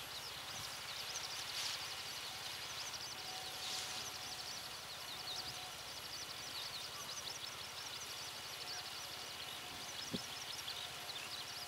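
A bird singing a long, unbroken run of rapid high chirping notes over a faint steady hum, with one soft knock about ten seconds in.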